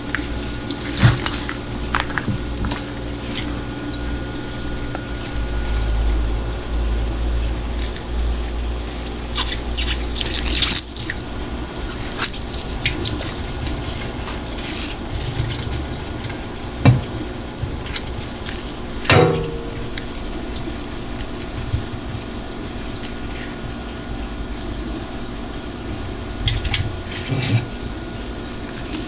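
Tap water running into a kitchen sink over a steady low hum, with scattered knocks and clicks as a large anglerfish is handled and cut with a knife on a cutting board.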